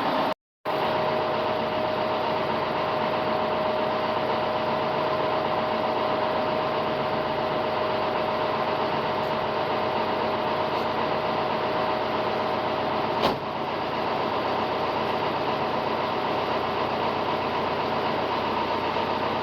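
Engine of a farm machine running steadily at an even speed, with a brief gap just after the start and a single click about two-thirds of the way through.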